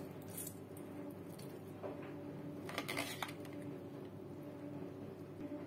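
Small clicks and soft wet rustles of raw peeled shrimp being handled in a plastic colander, with a brief sharper clatter about three seconds in. A faint steady hum runs underneath.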